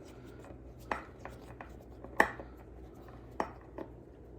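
A handful of sharp, irregular clicks and small knocks from a hand tool and metal parts being handled while taking apart an amplifier, the loudest a little after two seconds.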